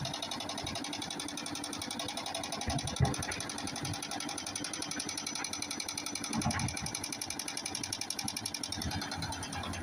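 Rock breaker hammering stone with rapid, steady blows, with one sharper knock about three seconds in.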